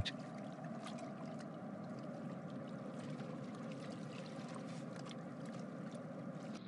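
Faint, steady wash of background ambience noise with a few faint ticks, without speech.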